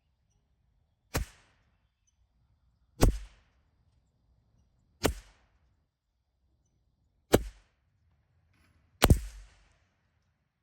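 Five shots from a CZ 457 bolt-action .22LR rimfire rifle, fired one at a time roughly two seconds apart.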